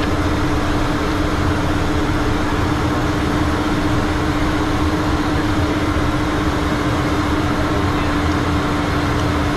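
Steady in-flight noise in a Learjet cockpit: rushing air and engine noise with a constant hum through it, unchanging throughout.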